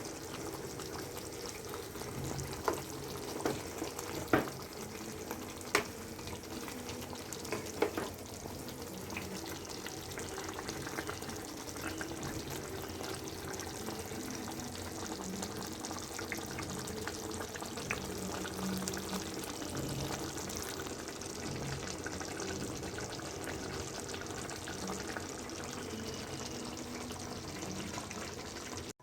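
Quail pepper gravy with green capsicum sizzling steadily in the cooking pan, with a few sharp utensil knocks against the pan in the first eight seconds or so.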